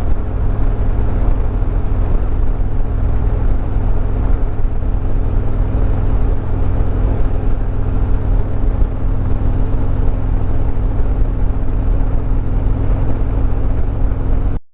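Harley-Davidson Road Glide Limited's V-twin engine running steadily at cruising speed, mixed with wind and road noise; the sound cuts off abruptly near the end.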